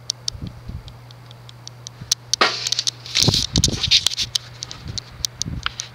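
Casablanca Wailea ceiling fan with rattan blades and a 153x20mm motor running on medium speed: a steady motor hum, with many irregular light ticks and a soft airy rush a few seconds in.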